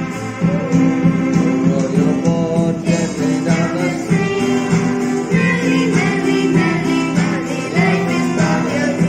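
Children's nursery-rhyme song with plucked guitar accompaniment; a singing voice comes in about three and a half seconds in.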